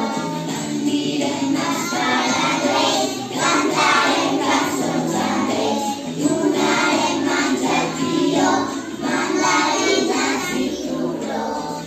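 A group of young children singing a Christmas song together in chorus, with musical accompaniment.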